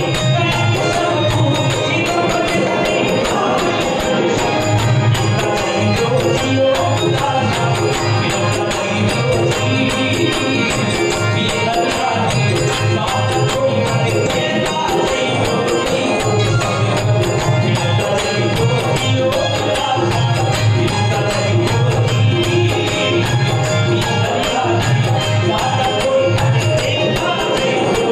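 Live Marwari devotional bhajan music: a male singer at a microphone with instrumental accompaniment and a steady beat.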